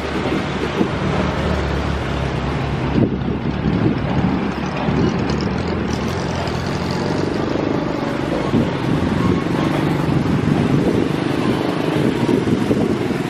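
Steady wind noise buffeting the microphone, mixed with the rumble of passing road traffic.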